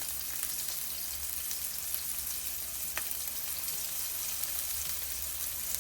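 Meatballs frying in a pan, a steady sizzle, with a single sharp click about three seconds in.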